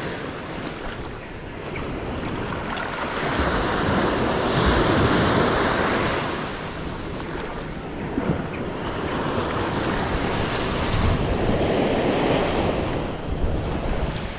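Small surf waves washing in and breaking at the shoreline, the wash swelling and ebbing every few seconds, with wind rushing over the microphone.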